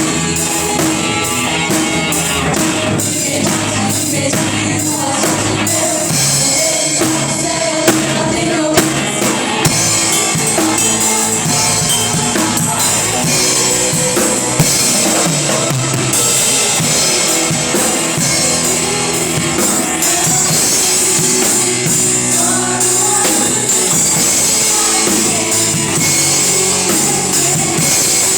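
Live worship music with a full drum kit, bass drum and snare, under instruments and some singing, with a few sharp accented drum hits in the first half.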